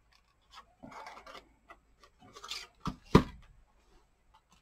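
Plastic craft paper punches and paper being handled: soft rustling and scraping, then two sharp knocks about three seconds in, a fraction of a second apart, the second louder.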